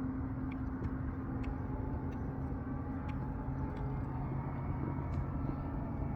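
Air-conditioning equipment running with a steady hum and a low, even tone, with a few faint ticks over it.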